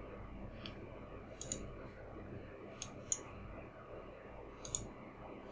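Faint computer mouse clicks, a handful of single and double clicks spread over a few seconds, as settings are picked in a software dialog.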